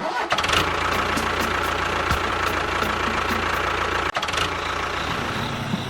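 A small engine running steadily with a light, regular knocking, with a brief break about four seconds in.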